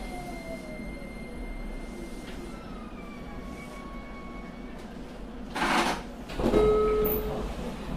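JR Kyushu 817 series electric train heard from on board, its motor tone falling as it slows and stops. About five and a half seconds in comes a short burst of air hiss, then, a second later, the doors sliding open with a brief steady tone.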